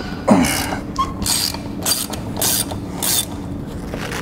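Socket ratchet clicking in about five short bursts as lug nuts on a tractor's rear wheel are turned loose.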